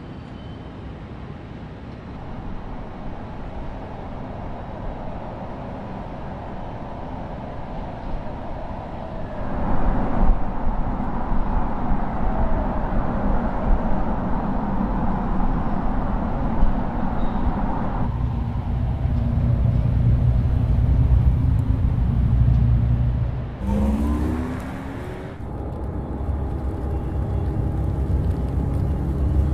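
Car driving sound: a steady hum and whir with road noise. It grows louder about nine seconds in, and a short rising sweep comes about three-quarters of the way through.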